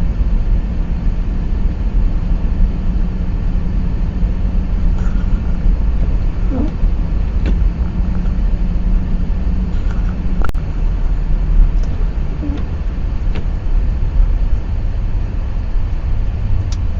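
Steady low rumble of a car driving on a snow-covered road, with a sharp click about ten seconds in.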